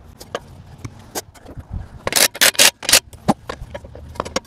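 Socket and long bar being worked on a semi truck's wheel lug nuts: a run of sharp metallic clicks and clanks, loudest in a quick cluster of four or five about two seconds in.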